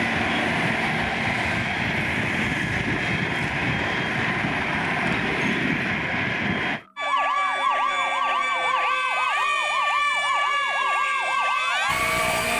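A steady rumbling noise for about seven seconds cuts off abruptly. A fast wailing emergency-vehicle siren follows, rising and falling about three times a second with several siren tones layered together, for about five seconds. Near the end it gives way to steady held tones.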